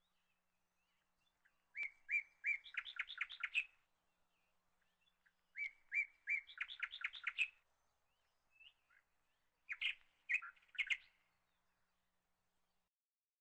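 A small songbird singing three short phrases, each a few separate notes followed by a quick run of rapid notes, about four seconds apart.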